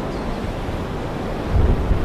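Heavy rain falling in a steady, even downpour. A low rumble swells briefly near the end.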